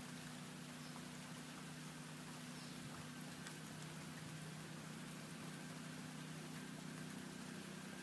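Faint outdoor ambience: an even hiss with a steady low hum beneath it and a few faint ticks.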